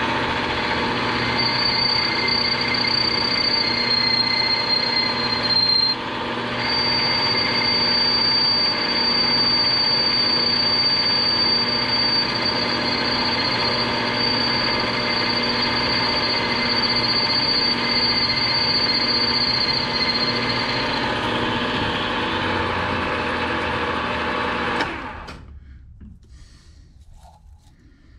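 Drilling machine running steadily as its twist drill bores a tap hole for a 1/4-20 thread in an aluminium plate, with a thin high whine through most of it that breaks off briefly about six seconds in. Near the end the machine is switched off and the sound dies away within about a second.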